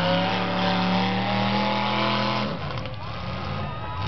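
Demolition derby cars' engines running loudly in the mud, one steady, slightly wavering engine note dominating. The engine note drops away about two and a half seconds in.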